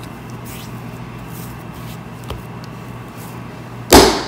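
Frybread dough kneaded by hand on a floured countertop: faint handling sounds, then one loud thump near the end as the dough is pushed down onto the counter.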